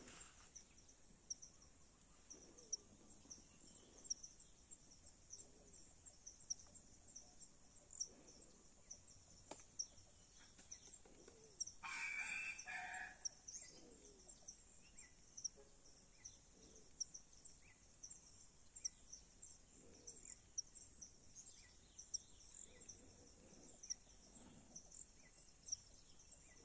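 Faint outdoor quiet with a steady high-pitched hiss, broken by a short bird call about twelve seconds in.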